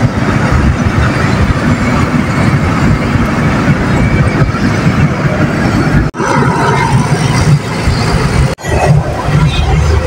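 Road and wind noise from inside a moving car, with a dense low rumble. The sound cuts out suddenly for an instant twice, about six and about eight and a half seconds in.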